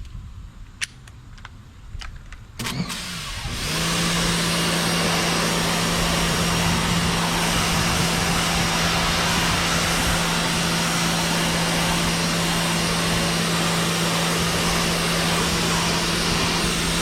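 Sun Joe SPX3000 electric pressure washer starting up about three seconds in, then running steadily: a constant motor-pump hum under the loud hiss of the water jet.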